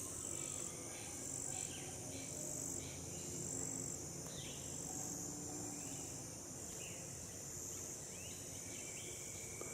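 A backyard chorus of insects and frogs: a steady high-pitched insect trill over a low, steady frog chorus, with scattered short chirping calls.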